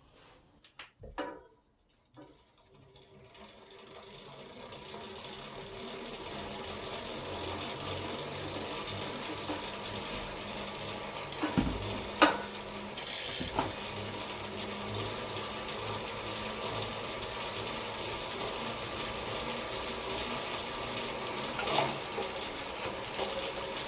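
SRAM Force AXS 12-speed chain running over its cassette, a steady mechanical whirring noise that builds up over the first few seconds and then holds, with a few sharp clicks in the middle and near the end. The owner takes it for abnormally loud chain noise.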